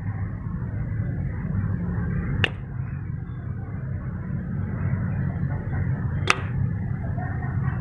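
Steady low rumbling noise with two sharp clicks, one about two and a half seconds in and one about six seconds in.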